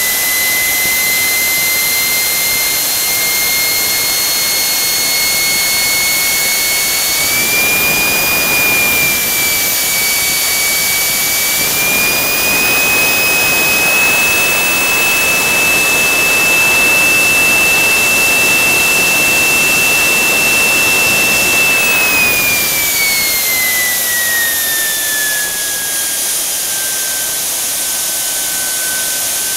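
JetJoe 1400 model jet turbine engine running, a loud whine over a steady roar. The whine rises in steps during the first half as the throttle goes from three-quarters to full, holds high, then falls about three-quarters of the way through as the engine is throttled back to half.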